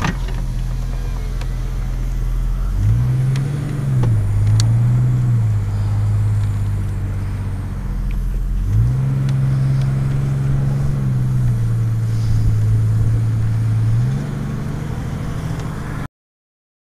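Car engine heard from inside the cabin as the car pulls away and drives. Its note climbs and drops back several times as it accelerates, settling into steady running between. The sound cuts off suddenly near the end.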